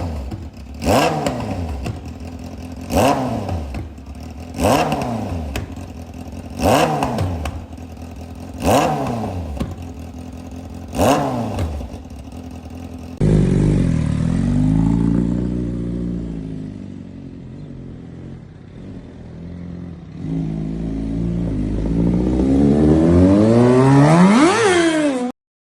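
Sport motorcycle with a loud aftermarket full exhaust system being revved: six sharp throttle blips about two seconds apart, each rising and falling in pitch. Then, after a sudden change, the engine runs continuously, sags and builds to a high-pitched rev before cutting off abruptly near the end.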